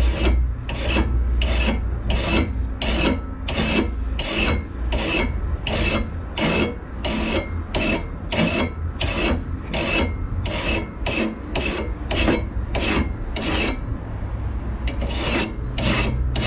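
Hand file rasping back and forth across the edge of a Makita DLM432Z cordless mower's metal blade clamped in a vise, about two strokes a second with a brief pause near the end. The edge is being filed flat and level to take out stone chips before it is re-profiled sharp.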